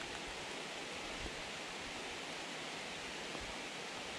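Steady hiss of rain falling on the pond's surface.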